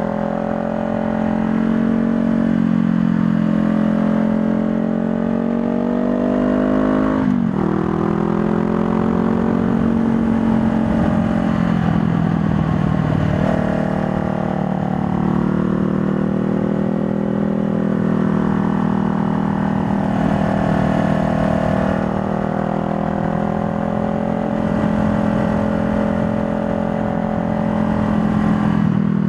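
2020 Honda Rebel 500's parallel-twin engine running under way. Its pitch rises for about seven seconds, then drops sharply as it shifts up a gear, and afterwards it holds a fairly steady speed with gentle rises and falls.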